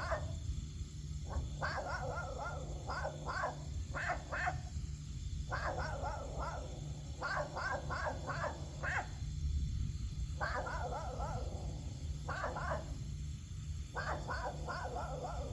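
Animal calls in quick runs of short, rapid notes, repeating in clusters every few seconds, over a steady low rumble.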